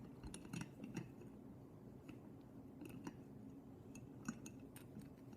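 Faint, scattered small clicks and taps of a marble cheese board's cutter parts being jiggled by hand to free the wire from its posts.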